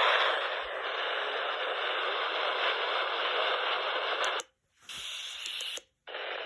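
Steady radio static hiss from a weather radio receiver, with no voice or tone on the channel. The hiss cuts out twice for a split second near the end.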